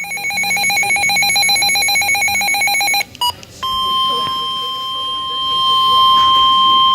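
Weather-radio alert tones. First comes rapid electronic beeping for about three seconds. After a short break and two brief blips, a steady high alarm tone starts and holds: the warning alarm tone that comes before a new warning.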